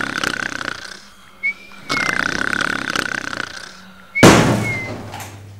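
A man snoring in bed: two long, rasping, fluttering snores, each followed by a short whistling breath. About four seconds in, a sudden loud burst that dies away over about a second.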